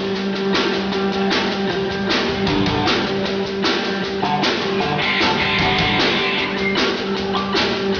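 A rock band playing live: electric guitars over a drum kit, with a steady held low note under the guitar lines and drum hits keeping a regular beat.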